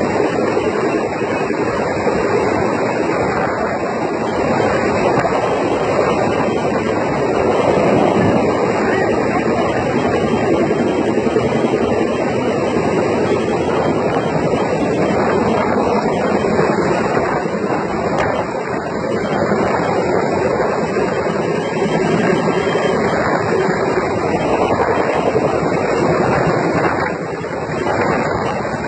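Helicopter flying steadily, its engine and rotor noise mixed with wind on the microphone.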